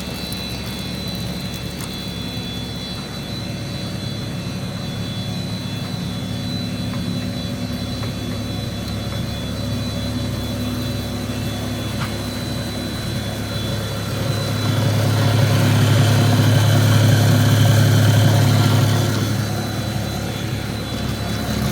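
Electric motor of a 55 mm plastic extruder, rated 20 HP, running steadily on a test run, a constant hum with a high whine above it. It swells louder for about five seconds in the second half and then eases back.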